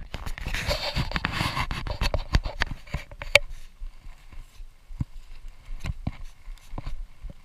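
Footsteps crunching over debris and brushing through dry weeds, with irregular knocks and scrapes. The rustling is thickest in the first few seconds; after that come scattered steps.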